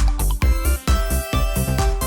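Electronic dance music with a steady, heavy bass beat and sustained synth notes.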